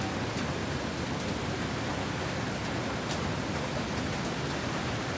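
Steady rush of storm wind and rain as a hurricane approaches, with a few faint high ticks like raindrops.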